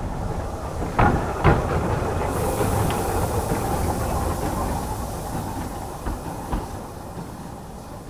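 Small steam tank locomotive running past at close range and on along the track: two sharp clanks about a second in, then a steady rumble of wheels on rail with a hiss of steam from about two seconds, fading as the engine draws away.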